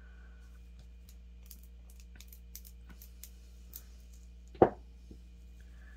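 Hands handling small gel polish bottles on a table: a few faint clicks and taps, then one sharp knock about four and a half seconds in, over a steady low hum.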